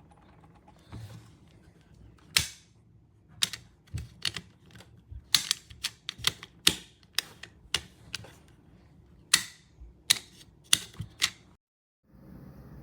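A run of sharp, irregular clicks and taps of small hard objects being handled, about twenty of them over nine seconds, over a faint steady low hum.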